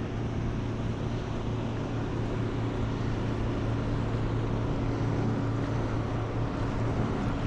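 Steady wind and surf noise at the water's edge, with a low, unbroken hum underneath.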